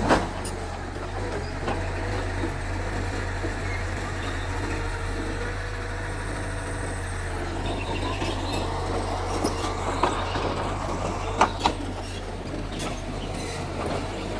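Mitsubishi bulldozer's diesel engine running steadily, with a few sharp metallic clanks: one at the start, one about ten seconds in, and two in quick succession shortly after.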